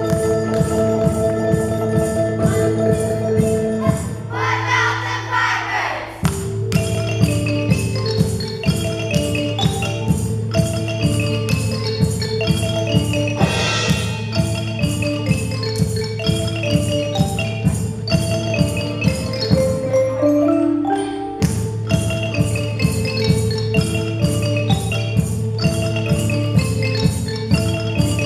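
Percussion ensemble playing wooden Orff-style xylophones and metallophones, many mallet notes over a low bass line, with a drum kit keeping a steady beat. The low notes drop out briefly twice.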